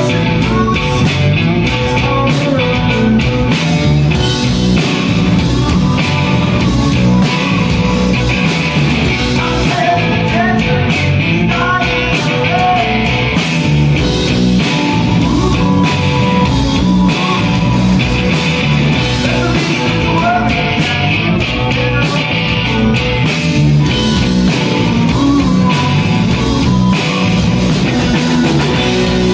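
Rock band playing live and loud: a Stratocaster-style electric guitar, bass guitar and drum kit, with a male lead vocalist singing over them.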